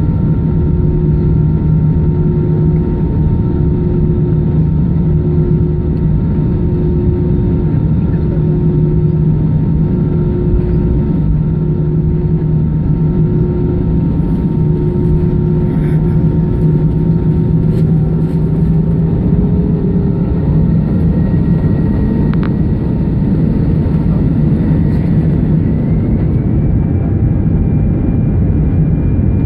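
Airbus A319 jet engines heard from inside the cabin over the wing, a steady drone with a hum while the plane taxis. About twenty seconds in, the engine pitch rises as thrust is brought up for the takeoff.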